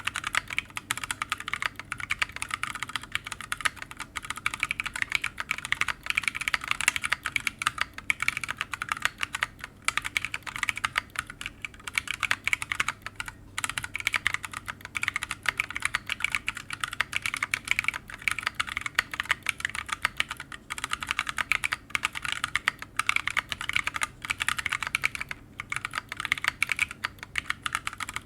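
Continuous fast typing on a Reviung41 40% mechanical keyboard fitted with Shogoki Tactiles tactile switches (65 g springs), in an open case with no sound dampening, an FR4 plate and PBT OEM-profile keycaps. The keystrokes come as a steady stream of dense clicks, with a few brief pauses.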